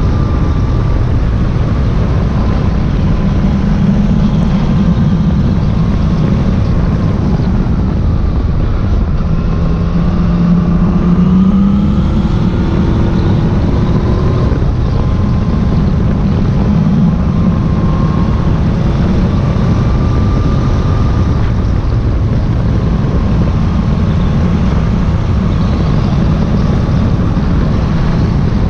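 Yamaha Tracer motorcycle engine running under way, its note rising and falling with the throttle, under a heavy rush of riding wind on the microphone.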